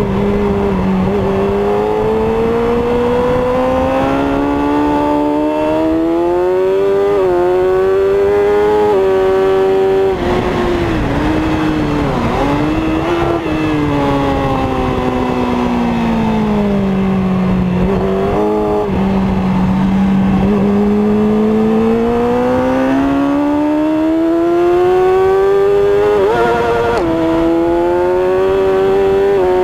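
1000cc-class superbike engine on a qualifying lap, heard from a camera mounted on the bike with wind rush. Its pitch climbs with quick upshifts around seven and nine seconds in, drops off the throttle with blipped downshifts around ten to thirteen seconds, falls slowly for a few seconds, then climbs steadily again with another upshift near the end.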